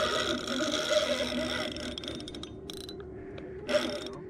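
Spinning reel's drag giving line to a running tarpon, a steady wavering mechanical whine; the drag is set loose. It eases off about halfway through and picks up briefly near the end.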